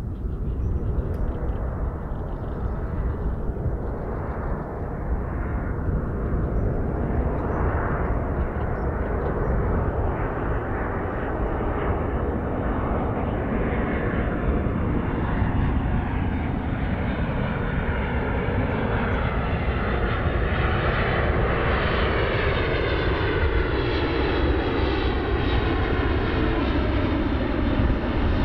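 ANA Boeing 777-200's twin turbofan engines on final approach with landing gear down, a steady jet rumble and whine that grows louder and brighter as the airliner comes closer, with tones gliding down in pitch in the second half.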